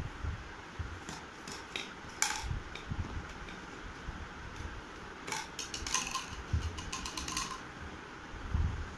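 Plastic toy stacking rings clattering on a hard stone floor: a sharp knock about two seconds in, then a quick run of ringing clicks from about five to seven and a half seconds as a ring falls, bounces and rattles to rest. A few dull low thumps come in between.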